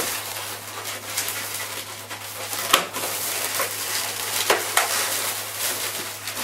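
Inflated 260 latex twisting balloons rubbing and squeaking against each other and against the hands as they are squeezed and twisted, with a couple of sharper squeaks near the middle.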